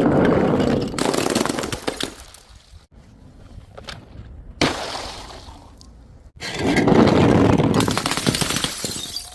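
Things being smashed and crushed: a long burst of dense crackling and crunching over the first two seconds, one sharp smash about four and a half seconds in, then a second long crackling crunch lasting about three seconds.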